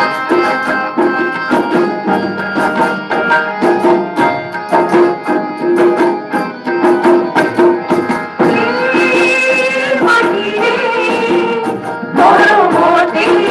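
Indian ensemble music with no singing: tabla playing fast, dense strokes under held harmonium and keyboard notes, an instrumental passage within a patriotic song. It gets louder about twelve seconds in.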